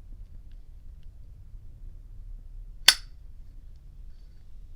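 A single sharp metallic clink about three seconds in, with a brief high ring: the hinged steel lid of a Zippo lighter snapping.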